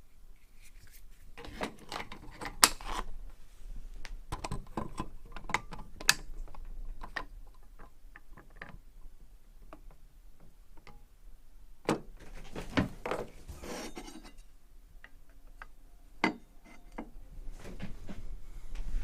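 Irregular clicks, taps and knocks of a fabricated metal plate and small tools being handled and set down on a workbench while it is checked.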